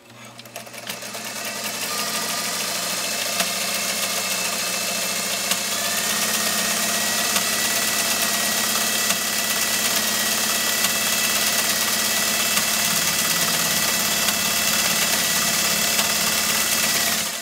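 American Beauty cam-pattern sewing machine running at speed, sewing a decorative stitch. It speeds up over the first two seconds, runs steadily with a high whine, and stops near the end.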